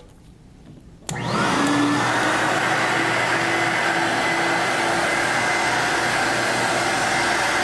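Portable carpet-cleaning extractor switched on about a second in: its vacuum motor whines up to speed, then runs steadily and loudly.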